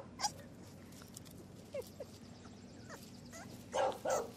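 English bulldog puppy giving a few faint short squeaks, then two loud short barks near the end.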